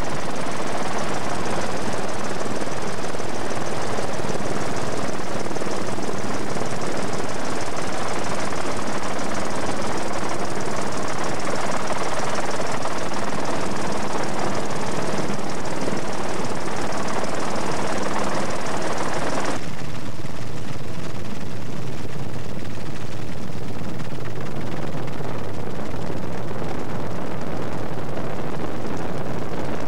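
Steady helicopter engine and rotor noise heard from on board the aircraft, with a faint steady hum under it. About two-thirds of the way in the sound changes abruptly and turns duller.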